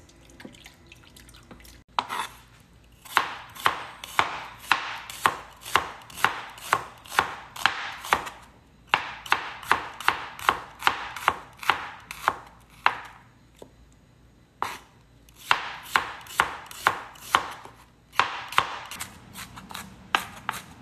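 Cleaver chopping shallots on a plastic cutting board: sharp knocks of the blade, about two a second, in several runs with short pauses between them, starting about two seconds in.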